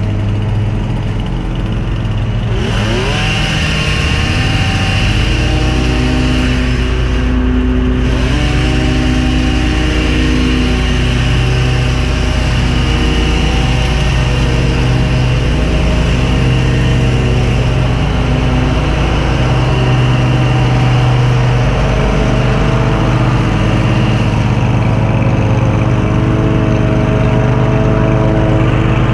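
Small petrol engines running together: a handheld Stihl two-stroke tool, most likely a hedge trimmer, worked at the shrubs, over a mower engine running on the lawn. One engine's pitch climbs a couple of seconds in, then the mix settles into a steady run.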